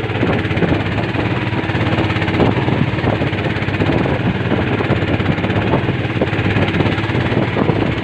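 Small wooden motorboat's engine running steadily under way in rough sea, with waves repeatedly slapping and splashing against the hull.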